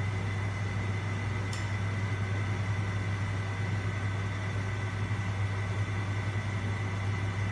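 Steady low mechanical hum with a faint high whine above it, like an appliance motor running; one faint click about a second and a half in.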